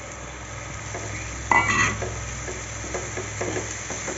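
Wooden spatula stirring chopped tomato and onion in a nonstick kadai, the vegetables frying with a light sizzle. The stirring comes as short scraping strokes in an uneven rhythm, with one sharp clink about one and a half seconds in.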